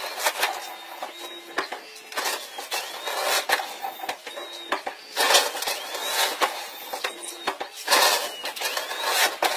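Aluminium boat hull grinding and crunching over beach gravel and stones as it is driven up the shore, in irregular surges, with louder stretches about halfway through and near the end.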